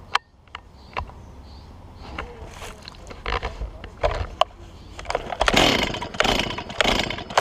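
Stihl chainsaw idling with scattered sharp knocks and snaps, then revved up a couple of times in the second half.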